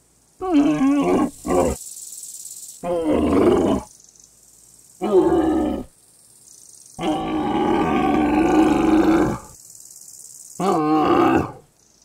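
Dromedary camel calling: six rough, pitched calls with short pauses between, the longest lasting about two and a half seconds, some seven seconds in.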